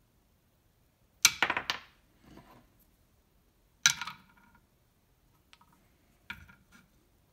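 A turned mahogany chess pawn dropped onto a wooden board three times, each landing with a sharp wooden knock followed by a quick rattle of bounces; the first landing bounces longest.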